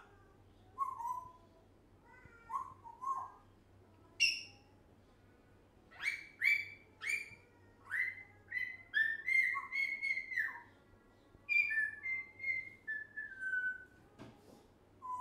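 African grey parrot whistling and chirping: a string of short whistled notes and pitch glides, with a quick run of sharp notes in the middle and a series of whistles stepping down in pitch near the end.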